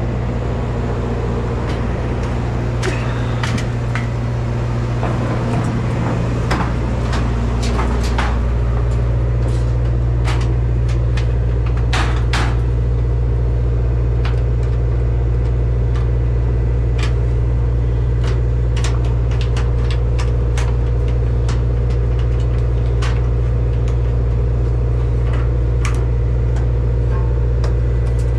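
Steady low machine hum with scattered sharp clicks and rattles over it.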